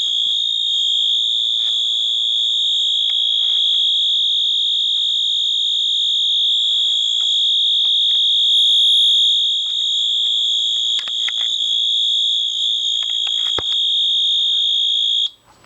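A function generator's speaker sounding a steady, high-pitched tone that imitates the horn of Wheelock MT and AS horn strobes. It cuts off suddenly near the end.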